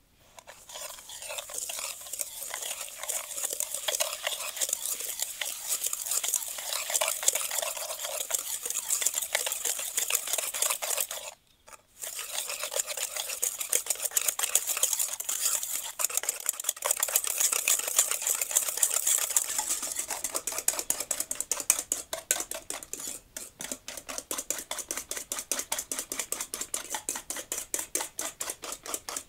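Wire whisk beating egg, sugar and spices in an enamel bowl, the wires clicking rapidly against the bowl. It stops briefly about eleven seconds in, then goes on in a steady, even rhythm.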